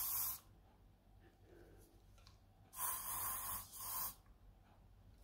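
Balea Cherry Glam aerosol hairspray sprayed onto hair: a hissing burst that stops about half a second in, then a longer burst of about a second near the middle and a short one right after it.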